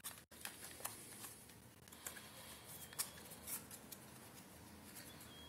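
Faint, scattered small clicks and rubbing of a 3D-printed plastic kaleidocycle's hinged links and discs being turned over by hand. The sharpest click comes about three seconds in.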